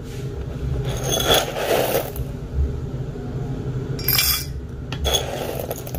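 Roasted coffee beans poured from a metal scoop into a small glass beaker, rattling and clinking against the glass in three short pours: about a second in, then near four and five seconds.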